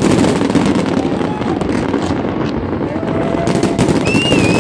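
Fireworks finale barrage: many shells bursting at once in a continuous, dense crackling and popping. A high whistle wavers up and down near the end.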